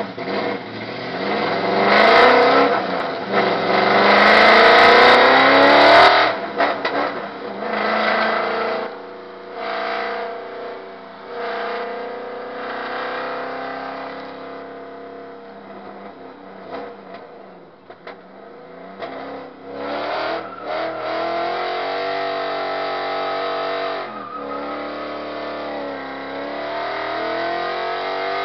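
Drift car's engine heard from inside the cabin, revving hard and climbing in pitch for the first six seconds, then rising and falling with the throttle for the rest of the run.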